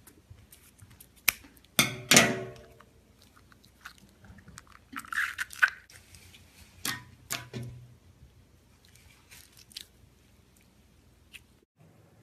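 Wet squishing and crackling of a slime-filled stress ball being cut and handled, with a few sharp clicks; the loudest squish comes about two seconds in.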